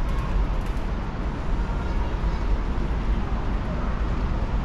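Outdoor city ambience: a steady low rumble of traffic noise with no distinct events.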